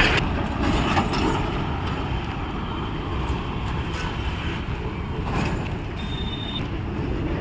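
Outdoor street noise: a steady low rumble, with a short high beep about six seconds in.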